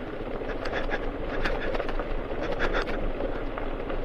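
Bajaj Avenger 220 motorcycle riding over a rough, broken gravel road. The engine and tyre noise run steadily, with frequent short rattles and knocks as the bike jolts over the bumps.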